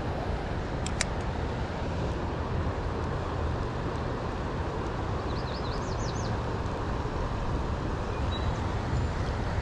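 Steady rush of a fast-flowing river current. A single sharp click comes about a second in, and a bird gives a short run of quick high chirps around the middle.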